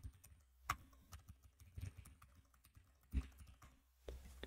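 Computer keyboard typing: a handful of scattered, faint keystrokes with pauses between them, two of them a little louder, about a second in and about three seconds in.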